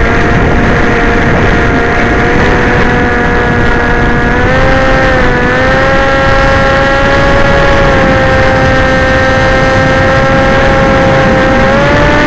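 Electric motors and propellers of a radio-controlled model aircraft in flight: a steady whine with several overtones that steps up in pitch about four and a half seconds in and again near the end, over heavy wind rumble.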